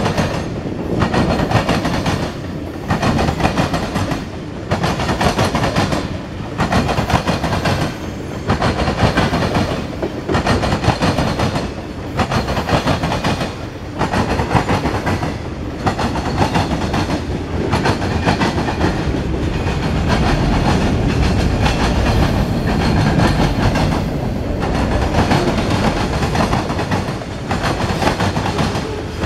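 Freight train tank cars rolling past close by, steel wheels clacking over the rail joints. The rumble dips briefly about every two seconds as each car goes by.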